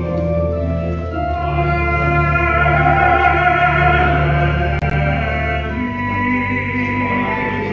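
Church organ playing slow instrumental communion music: long sustained chords over a held bass note that moves to a new note about six seconds in.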